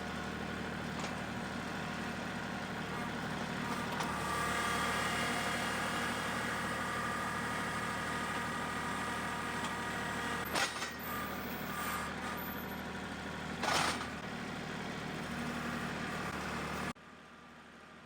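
An engine running steadily just after being started, with two brief knocks, about ten and fourteen seconds in. The engine sound cuts off abruptly about a second before the end.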